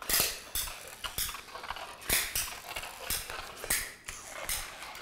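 Manual caulking gun squeezed over and over, pushing construction adhesive out in a zigzag bead onto the back of a shiplap board: short clicks at an uneven pace of about two a second.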